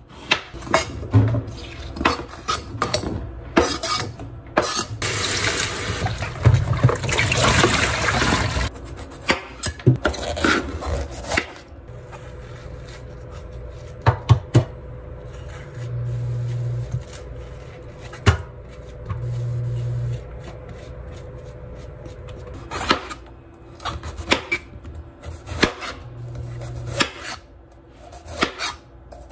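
Household handling sounds: containers and dishes knocking and clinking, with water running for a few seconds near the start. Three short low hums come later.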